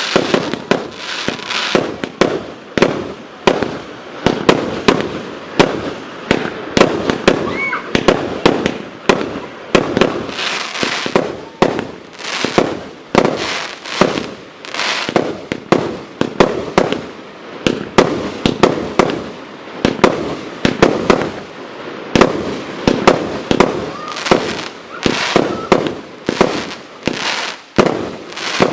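A 100-shot, 25 mm-calibre fireworks cake firing in a steady barrage: sharp launch thumps and aerial bursts following one another at roughly two shots a second.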